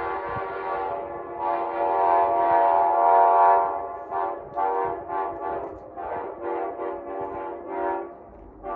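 Approaching train's locomotive air horn: two long blasts, then a quick string of about eight short toots, and one more short blast near the end.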